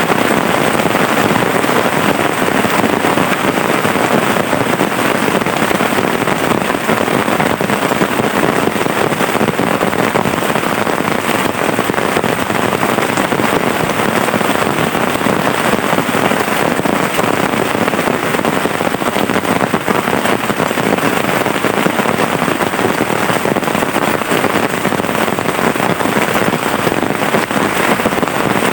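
Heavy rain falling steadily, a dense, even hiss of countless drops striking close by.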